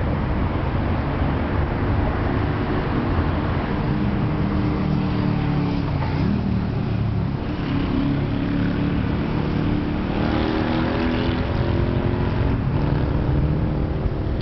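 Steady motor traffic: the engines of several passing vehicles running, their tones rising and falling as they go by.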